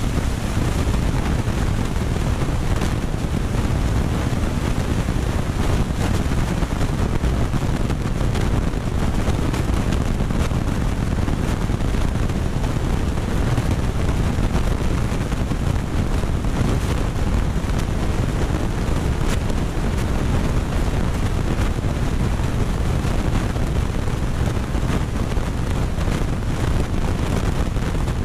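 Aquarium filter and bubbling tank water making a steady rushing, rumbling noise, with a few faint clicks.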